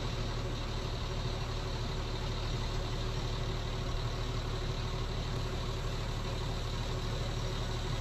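An engine idling steadily with a low rumble and no change in pace, most likely the lifting machinery working on site.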